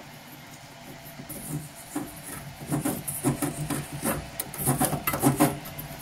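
Long nylon brush scrubbing deposits out of a gas boiler's heat exchanger: irregular rasping strokes that start about two seconds in and get louder and quicker toward the end.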